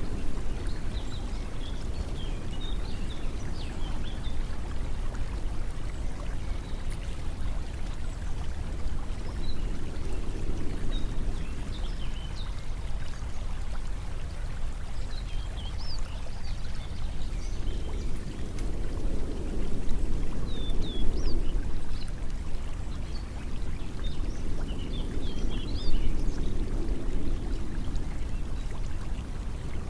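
Steady running water like a stream, swelling gently every several seconds, with short high chirps scattered throughout.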